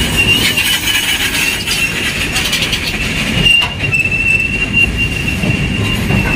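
A goods train's open-top freight wagons rolling past close by, a steady rumble and rattle of wheels on the rails with a sustained high-pitched squeal from the wheels that grows louder about halfway through.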